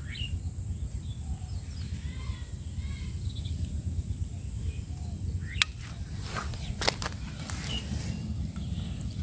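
Outdoor rural ambience: a steady low rumble with a high steady hiss and faint chirps. A little past halfway the hiss stops and a run of sharp clicks and rustles begins.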